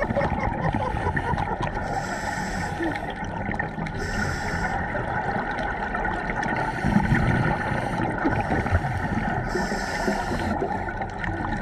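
Underwater sound picked up by a diver's camera: scuba exhaust bubbles gurgling from regulators, with four bursts of bubble hiss about two seconds apart over a continuous low rumble and a faint steady hum.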